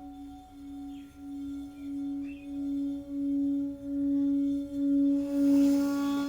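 Singing bowl humming with one steady note and a few overtones, being rimmed so that the tone pulses a little faster than once a second and swells steadily louder. A brief rushing hiss rises near the end.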